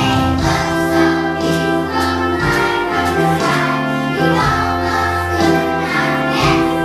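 A song playing: singing voices over instrumental accompaniment with held notes.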